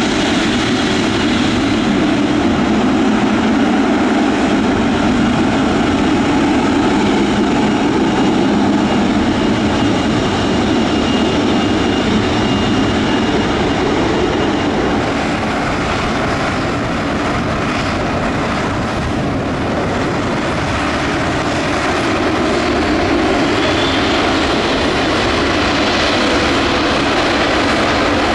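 Boeing 777-200F freighter's jet engines running at taxi power, a steady loud noise with a faint high whine. About halfway through, the sound changes to an Alenia C-27J Spartan's twin turboprop engines running as it taxis.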